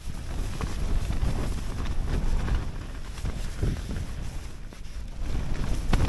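Strong wind buffeting the microphone: a low rumble that sets in abruptly and rises and falls in gusts.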